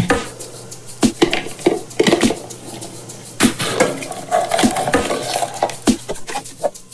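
Hard plastic clicking and clattering, irregular taps and knocks, as hands open a small plastic surprise egg and handle what is inside.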